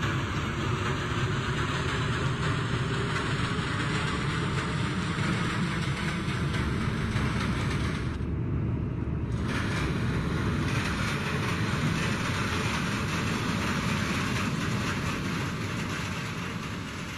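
Subway train heard from inside a moving car: a steady rumble with rail noise. The higher hiss drops out briefly about eight seconds in, and the sound begins to fade near the end.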